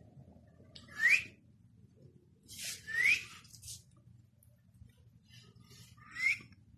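A person whistling three short, rising notes, with breathy hiss, about a second in, at three seconds, and near the end, calling a puppy.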